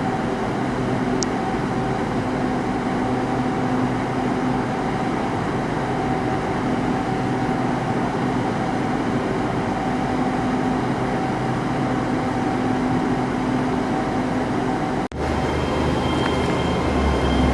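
Diesel train engine running steadily, a constant hum with several steady tones. About fifteen seconds in the sound briefly drops out, then comes back with a different set of tones and a deeper low hum.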